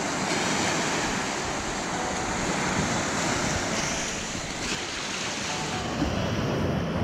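Surf: small waves breaking and washing over wet sand at the water's edge, a steady rushing wash.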